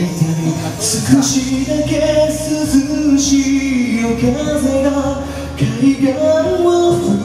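A man singing into a karaoke microphone over a music backing track, holding long sustained notes.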